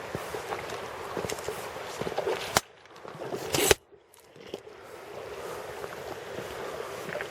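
A river's flowing water rushing steadily, with a few short sharp sounds in it. The sound drops away abruptly about two and a half seconds in, returns briefly, cuts off again just before four seconds in, then comes back.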